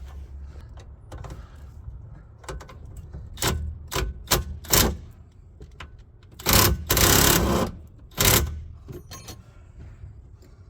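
Impact wrench firing in short bursts, with one longer run of about a second, on a rear sway bar link nut. The nut won't come off because the link stud is spinning with it.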